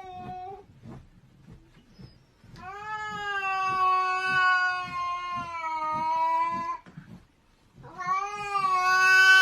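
Cat yowling in long, drawn-out cries held at a steady pitch: the tail of one cry, then a cry of about four seconds, then another beginning near the end.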